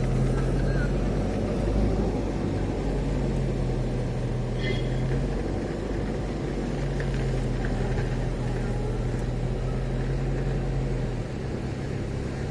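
Vehicle engine running steadily with road noise, heard from inside while driving. A short high chirp comes a little before the middle, and the engine note drops about eleven seconds in.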